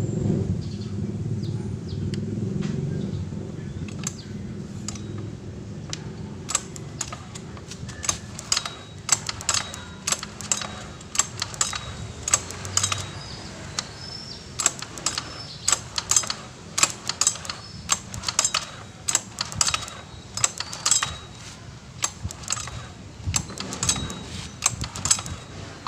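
Hand work on small hard parts: many irregular sharp clicks and clinks, with a low rumble that dies away in the first few seconds.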